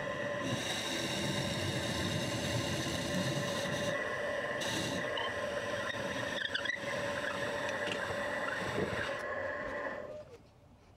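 Wood lathe running with a steady whine while a drill bit in a tailstock chuck bores into the end grain of the spinning wooden blank, with a rough scraping of the cut. The sound drops away sharply about ten seconds in as the lathe stops.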